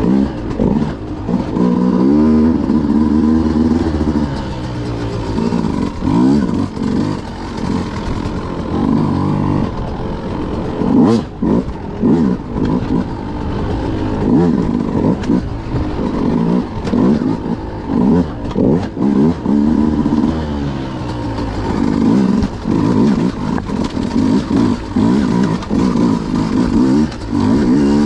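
Beta RR 200 two-stroke enduro motorcycle engine revving up and down again and again as it is ridden over rough trail. A few sharp knocks come about eleven seconds in.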